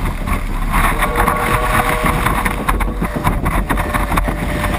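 Surf and whitewater rushing around a surf kayak riding a breaking wave, with spray spattering and wind buffeting a deck-mounted action-camera microphone.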